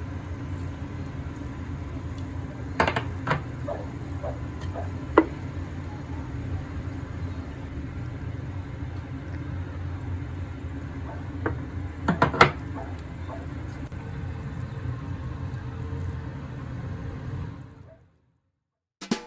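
Steady low kitchen hum with a few short, light clicks and knocks from seasoning containers being handled over a bowl of boiled cabbage. The sound cuts off near the end.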